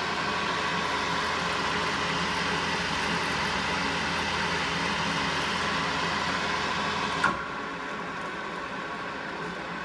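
Powermatic 20-inch Model 1200 drill press running under power with a steady mechanical hum. About seven seconds in there is a sharp click, after which the sound drops quieter but keeps running.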